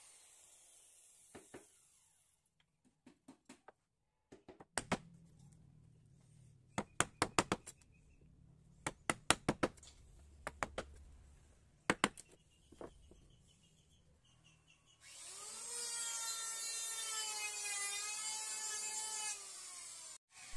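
A flat steel blade scraped by hand in short strokes along a carved teak door edge, making quick clusters of sharp clicks and scrapes. About fifteen seconds in, a wavering pitched tone runs for about four seconds and cuts off.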